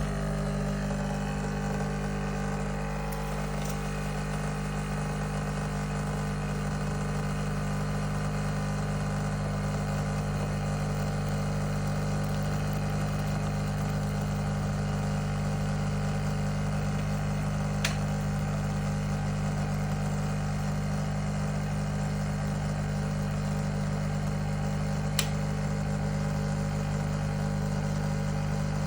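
Nescafé Dolce Gusto coffee machine's pump running steadily as it pushes hot water through the coffee pod, a constant hum, with two faint clicks in the second half.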